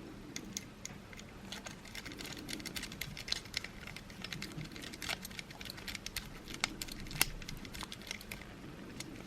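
Small plastic clicks and taps, many of them in quick irregular succession, from a car key fob being handled and fitted back together.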